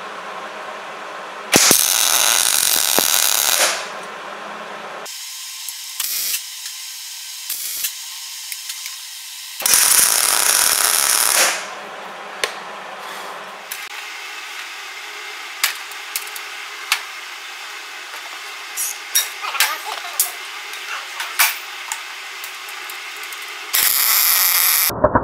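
MIG welder arc crackling as a steel plate is welded onto a brake rotor, in three bursts of about two seconds each, the last starting near the end. Between the welds there are scattered small clicks and ticks.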